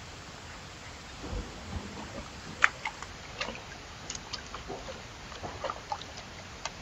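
Small puppy moving about in a ceramic bathroom sink: scattered light clicks and taps of its claws on the basin over a steady hiss, with a low thump about a second and a half in.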